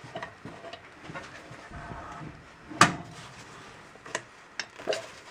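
Scattered metal clicks and knocks as an antique hand suction gun is handled and set into a car's oil filter canister, with one sharp, loud click about three seconds in.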